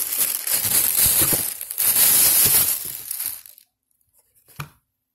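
Clear plastic bag crinkling and rustling as a sneaker is pulled out of it, stopping abruptly about three and a half seconds in. A single short knock follows about a second later.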